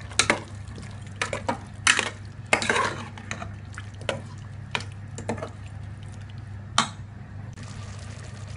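A spoon stirring chicken pieces through thick masala in an aluminium pressure-cooker pot, with irregular scrapes and knocks against the pot that stop about seven seconds in.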